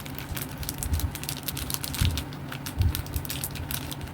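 Small screws and cabinet hardware being handled, making rapid irregular light clicks and taps, with a couple of soft knocks near the middle.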